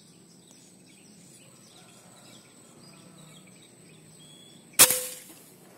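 A single rifle shot fired through a scoped hunting rifle about three-quarters of the way in: one sharp crack with a brief ringing tail, over faint insect and bird chirps.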